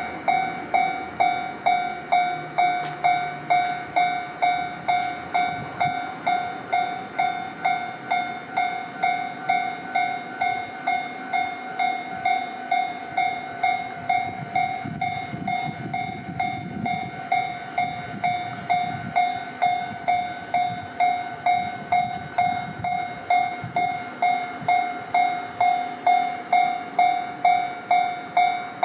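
Japanese level crossing warning bell ringing steadily, a repeating ding at about two a second. In the middle a train runs through the crossing, adding a low rumble and wheel clatter under the bell.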